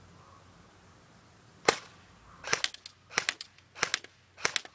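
Crosman Pulse R76 electric airsoft rifle (AK-47 replica, battery-powered) firing on semi-auto: one sharp shot, then four more in a steady rhythm about two-thirds of a second apart, each heard as a quick cluster of clicks.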